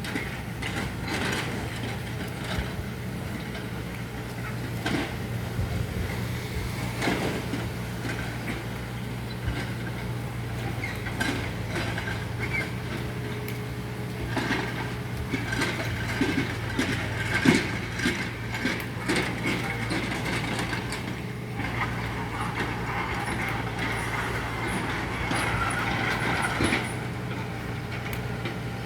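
Road noise: a vehicle engine runs steadily underneath, with scattered short knocks and clanks that are busiest in the middle. The loudest clank comes about two-thirds of the way through.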